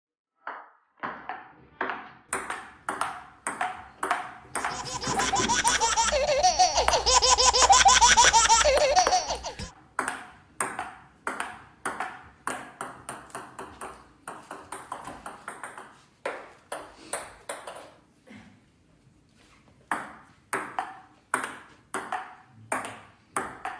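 Table tennis rally: a ping-pong ball clicking off a wooden table and paddle in sharp hits about two a second. From about five to ten seconds in, a loud voice sounds over the hits, the loudest part.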